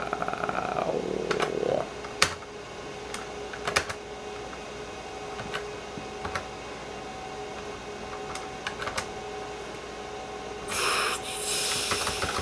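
Computer keyboard keys being typed, single keystrokes spaced irregularly over a faint steady computer hum, with a short hiss of noise lasting about two seconds near the end.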